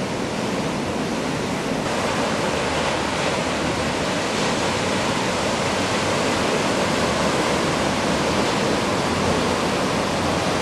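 Steady rushing hiss of surf and moving water, getting a little louder about two seconds in.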